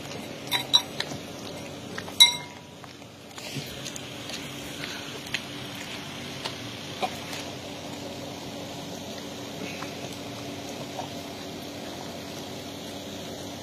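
A dog eating from a plastic bowl, knocking a metal spoon in the bowl so that it clinks several times in the first few seconds, the loudest clink about two seconds in. After that, quieter wet eating sounds with scattered small ticks.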